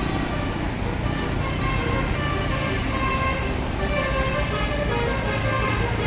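A tour bus's telolet basuri musical horn playing a melody of short notes over engine and road rumble. The engine's low note grows stronger near the end as the bus comes on.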